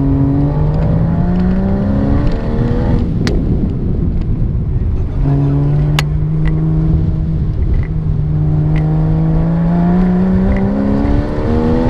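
Porsche sports car engine heard from inside the cabin under hard acceleration: it revs up for about three seconds, drops away briefly, then pulls up steadily again, rising in pitch toward the end. A couple of sharp clicks sound over it.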